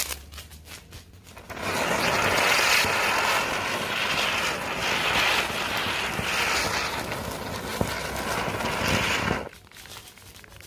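Ground chakkar spinner firecracker: a faint fuse sputter, then about a second and a half in it catches and spins with a loud, steady hiss of sparks. The hiss cuts off sharply near the end as it burns out.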